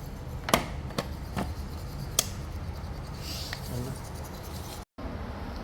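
A steady low machine hum with several sharp clicks and knocks of handling, and a short hiss about three seconds in.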